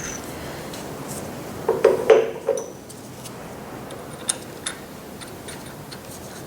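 Metal clinking and knocking: steel parts or tools handled and set down on a metal surface, a quick cluster of four or five ringing knocks about two seconds in, then a couple of light ticks.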